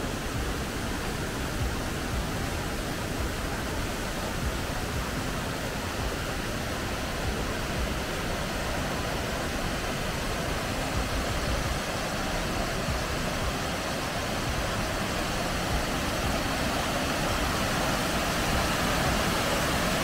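Steady rushing of a waterfall cascading down over rocks, growing slightly louder toward the end.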